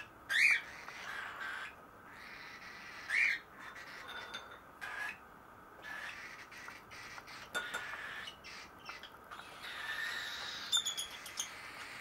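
Baby cockatiels making hungry begging calls: two loud rising squawks, about half a second in and again around three seconds, with softer calls in between and a cluster of high calls near the end.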